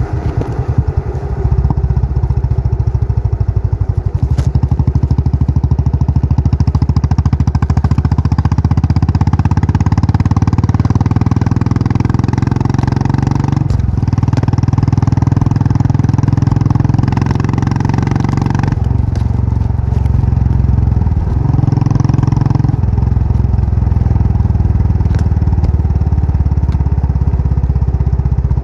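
Royal Enfield Bullet's single-cylinder engine running under the rider, an even, rapid beat; it gets louder about a second and a half in, and its pitch steps down and back up several times with throttle changes.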